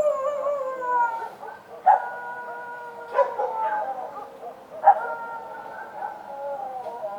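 Street dogs barking in sharp single barks every one to two seconds, with long drawn-out howls that slide slowly down in pitch between the barks.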